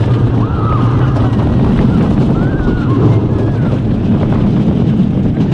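Wind rushing over the microphone and the heavy rumble of a wooden roller coaster train running along its track at speed, with riders' screams and yells rising and falling over it several times.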